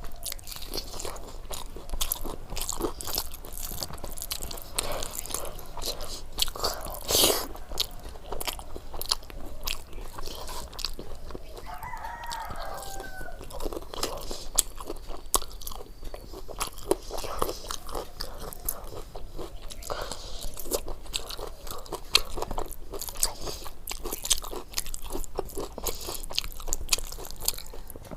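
Close-miked eating: irregular crunching, biting and chewing of food, with many small mouth clicks. A short pitched call sounds once in the background about twelve seconds in.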